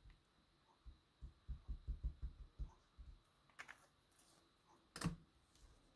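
Faint, soft low taps of a liquid glue bottle's tip being dabbed onto a piece of cardstock on a craft mat, about ten in quick succession, followed by a couple of sharper clicks as the bottle and paper are handled.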